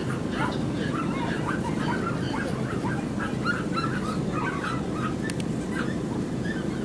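Several dogs yapping and barking in short, rapid calls, many to the second, over a steady low background noise.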